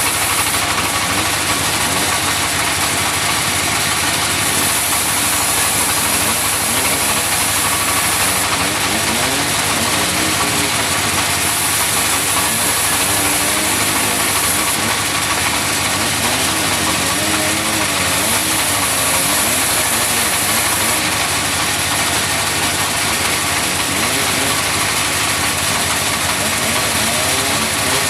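Sawmill running and sawing wood: a loud, continuous engine-and-blade noise, its pitch wavering up and down.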